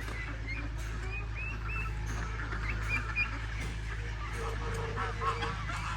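A flock of domestic ducks calling, many short overlapping calls.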